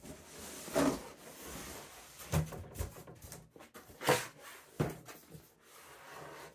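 Cardboard scraping and knocking as a boxed gift set is pulled up out of a cardboard shipping box, with several sharp knocks and scrapes, the loudest about four seconds in.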